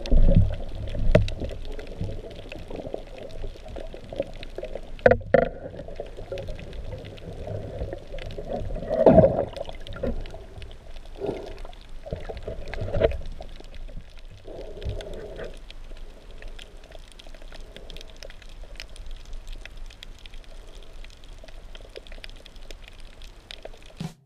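Underwater water noise heard through a GoPro's waterproof housing: a dull, muffled wash and gurgle, with several louder whooshes of water movement, the strongest about five and nine seconds in.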